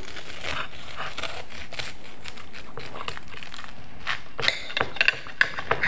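A knife cutting through a crispy crust of pressed fries and melted cheese: a run of small crackling crunches, louder and more frequent from about four seconds in.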